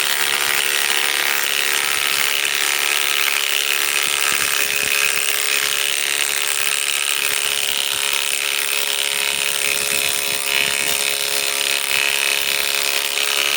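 Ryobi PSBIW25 compact cordless impact wrench hammering without a break as it drives a 5/16 by 3 inch galvanized lag screw into wood under heavy load. It is a loud, steady rattle with a held whine in it, and the screw stops going in any further.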